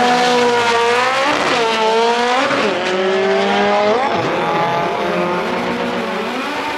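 Two Honda drag cars accelerating hard down the strip from a standing start. The engines climb through the gears, with shifts about 1.5, 2.7 and 4 seconds in, then fade as the cars pull away.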